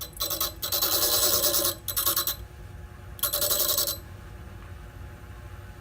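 Bench grinder's abrasive wheel grinding against the rim of a worn gray roughing diamond wheel held lightly to it, in four short touches with a high ringing grind, the last after a short pause; between touches only the grinder's low running hum is heard. This is the diamond wheel being dressed flat where it has worn wavy.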